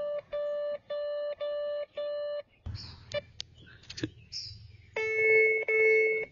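Dr Otek MT-XR metal detector sounding on a buried target: a run of short identical beeps, about two a second, for the first two seconds, then a few clicks. From about five seconds in comes a steady held tone, the detector's pinpoint response when the coil is right over the target.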